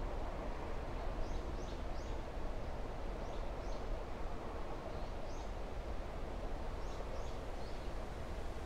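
Steady outdoor background noise with small birds calling: short, falling high chirps in clusters of two or three, scattered through.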